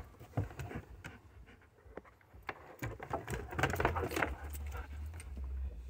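Dog's collar tags jingling, with scattered taps and scuffs as the dog moves down wooden deck steps.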